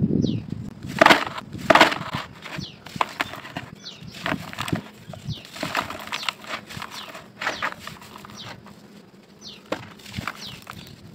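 Dry sand-cement chunks being crushed and crumbled by hand into a basin: gritty crackling and crunching as pieces break and powder falls, with the loudest crunches about one and two seconds in.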